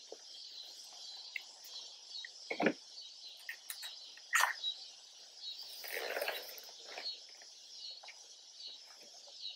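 A few short clicks and knocks as a handheld hanging scale is hooked onto a loaded backpack, then a rustle as the pack is lifted on it. Behind it, a steady background of birds and insects chirping.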